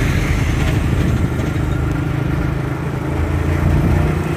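Single-cylinder four-stroke engine of a 1986 Honda XL 125 motorcycle running steadily.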